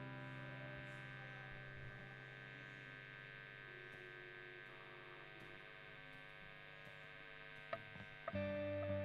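A quiet held chord from the worship band's instruments, steady and slowly fading. A click comes near the end, then the band comes back in with louder playing.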